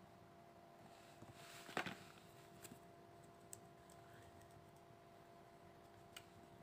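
Near silence: room tone with a faint steady hum. About two seconds in there is a brief rustle or scrape, then a few light clicks, the small handling noises of colouring a drawing.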